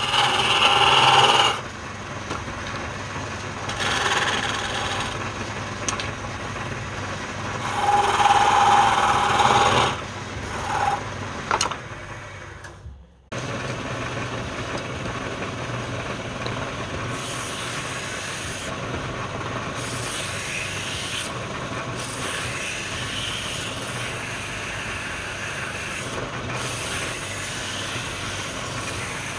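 Wood lathe running, with a turning tool cutting the spinning wood in several loud bursts over the first dozen seconds. After a sudden break, a steady machine hum.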